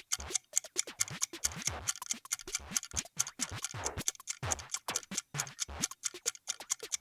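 Countdown timer music for a quiz answer: a quick, steady run of clock-like ticks with short low notes underneath.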